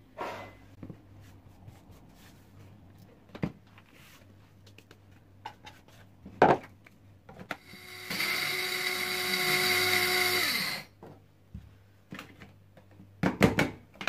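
Small electric blade grinder running for about three seconds, grinding dried crushed eggshells into fine powder: a steady motor whine over the rattle of the shells. A sharp knock comes a little before it starts, and there is clatter near the end as the grinder is handled.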